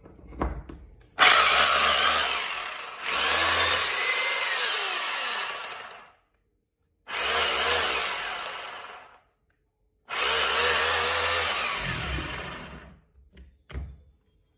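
Corded 220 V three-function rotary hammer drill run free, not drilling, in three bursts of a few seconds each; each burst starts sharply and fades as the motor winds down. Near the end come a few short clicks as a drill bit is pushed into the chuck.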